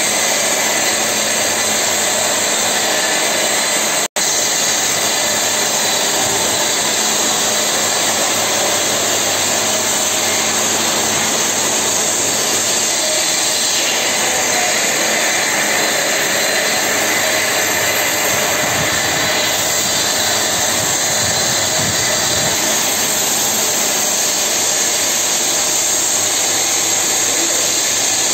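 Steady, loud whirring noise of workshop machinery running, with a momentary dropout about four seconds in.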